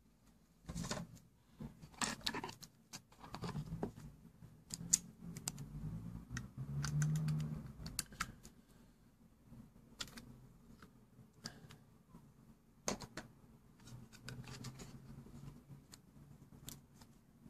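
Hands handling small plastic phone accessories and a cardboard box: irregular sharp clicks and taps with light rustling between them.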